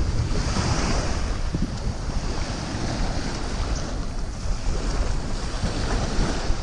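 Wind buffeting the microphone over the wash of small surf on a sandy beach, with a swell of surf hiss about half a second in.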